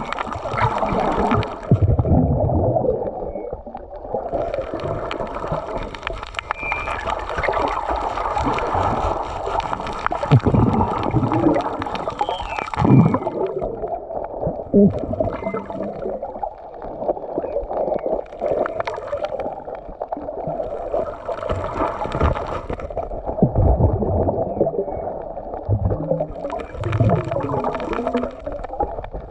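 Muffled underwater rushing and gurgling of sea water heard by a submerged camera, swelling and fading every few seconds, with a few sharp knocks in the middle.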